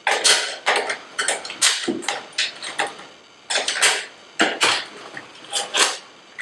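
Irregular metallic clicks, clinks and scrapes as parts of an IBM IntelliStation POWER workstation are handled and slid back into its chassis.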